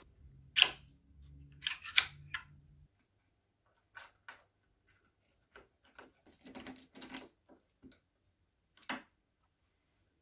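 Irregular light clicks and knocks, a few of them sharp, with a low hum for the first three seconds that cuts off suddenly.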